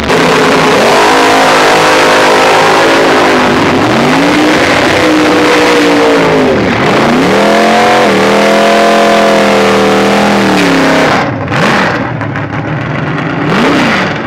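Drag car engine held at high revs through a burnout, its pitch sagging and climbing again about midway, over the hiss of spinning tyres. Near the end the revs drop, and it gives two short throttle blips.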